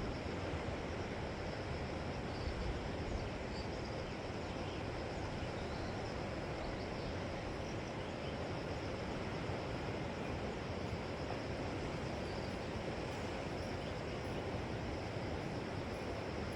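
Steady wash of surf on the seashore, an even rushing with no breaks, with faint high chirps over it.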